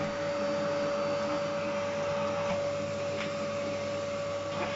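Philips PowerPro Compact canister vacuum cleaner running steadily, a constant motor whine over the rush of suction, with a few faint clicks.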